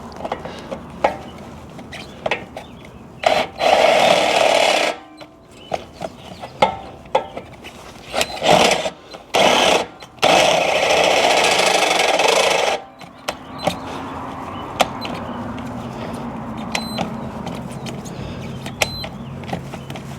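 Power drill boring into steel in bursts: about two seconds of grinding, two short bursts, then about two and a half seconds more, with clicks between them. The drill and bit are not up to the job by the user's own account. A steady low hum follows in the last third.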